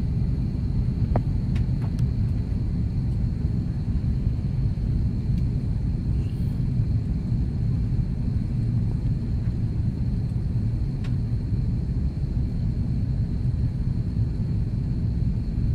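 Cabin noise inside an Airbus A330-323 airliner descending on approach with flaps extended: a steady low rumble of its Pratt & Whitney PW4000-series engines and airflow, with a faint steady high whine over it.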